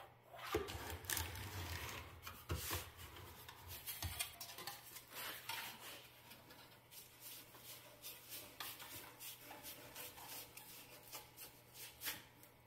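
Thin sheet metal being bent by hand around a metal pipe: faint rubbing and scraping with scattered light ticks and taps of the metal.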